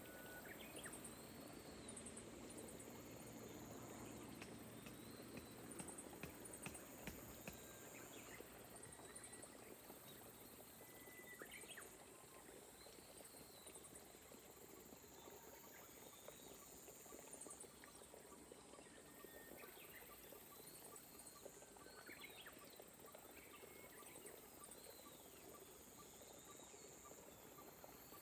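Faint soft rain hiss in rice paddies, with short bird chirps every few seconds and high, pulsing insect chirps repeating throughout.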